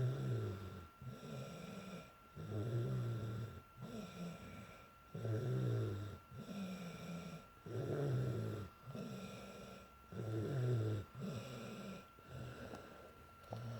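A girl snoring in her sleep while sick with a cold: a loud, rough snore about every two and a half seconds, with quieter breathing noise between them.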